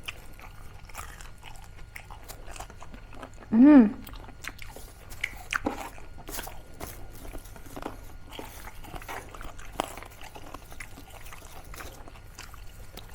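Crunching and chewing of crispy fried pork mesentery (chicharong bulaklak) close to the microphone, as a string of irregular crisp cracks. About three and a half seconds in comes a short pitched vocal sound that rises and falls, the loudest moment.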